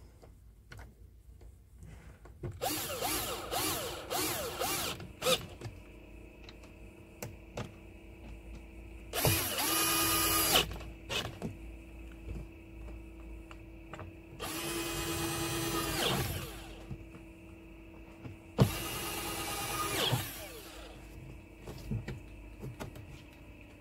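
Cordless drill-driver driving screws into a truck's plastic door panel, in four separate runs of one to three seconds each. A few light clicks and knocks fall between the runs.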